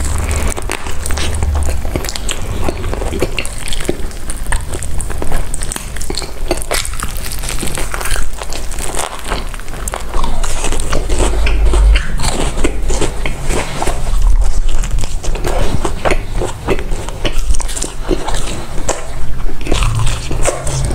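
Close-miked eating sounds: crunchy bites and chewing of fried food, with many short crackles.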